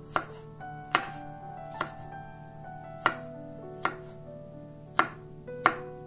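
Chef's knife chopping a garlic clove on a wooden cutting board: sharp knocks of the blade on the board, about one a second, seven in all. Soft background music with held notes plays underneath.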